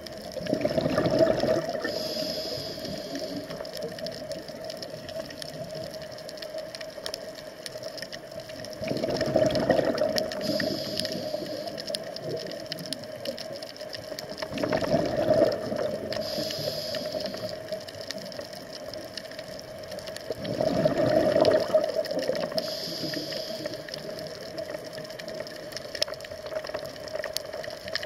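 Scuba diver breathing through a regulator underwater: four bubbling exhalations about six seconds apart, each followed by a short higher hiss, over a steady hum.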